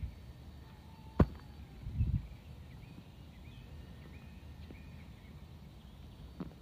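Birds calling faintly with short chirps, over which a single sharp click sounds about a second in and a short dull thump follows a second later; another click comes near the end.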